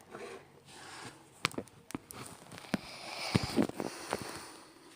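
A sticker sachet being handled and torn open: crinkling and rustling with scattered sharp clicks, loudest about three seconds in.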